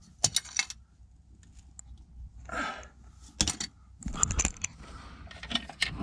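Scattered light clicks, clinks and scrapes of someone crawling through a house's crawlspace carrying tools, with a short breath about two and a half seconds in and a longer scrape about four seconds in.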